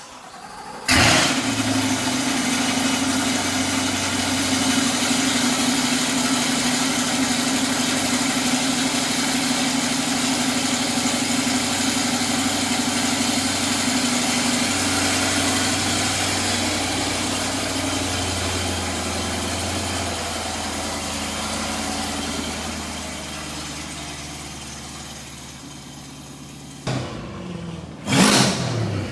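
2026 Corvette C8 Stingray's 6.2 L LT2 V8, breathing through Atlantic Built cat bypass pipes in Tour mode, starting up: it fires about a second in with a loud flare, then settles into a steady idle that slowly quietens. Near the end come two short, loud bursts.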